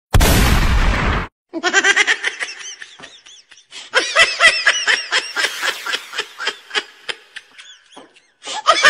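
A loud burst of noise for about the first second, then high-pitched laughter in quick repeated 'ha' bursts, a few per second, fading and starting up again about four seconds in.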